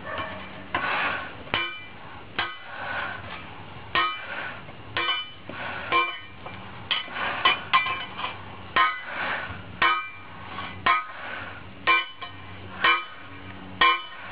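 Hammer blows on a red-hot steel mower blade laid on a thick steel-plate anvil, about one blow a second with some in quick pairs, each ringing briefly. The blade is being hammered flat to straighten its bend.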